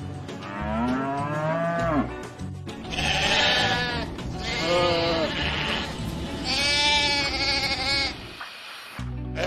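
A cow moos once, a long call that rises and falls, then sheep bleat three times, each bleat about a second long. Background music plays throughout.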